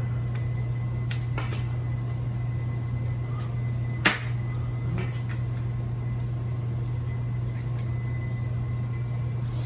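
A steady low hum, with a few faint clicks and one sharp knock about four seconds in.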